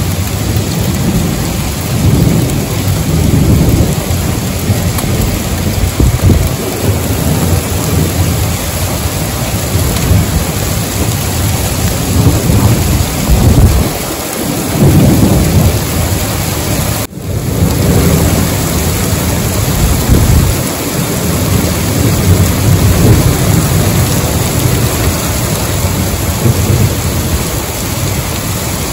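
Heavy rain pouring steadily onto pavement and parked cars, with thunder rumbling low underneath in several long rolls. The sound drops out for an instant about two-thirds of the way through.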